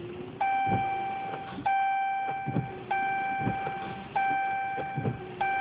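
Dodge Ram dashboard warning chime sounding over and over: a steady electronic tone repeating about every second and a quarter, five times.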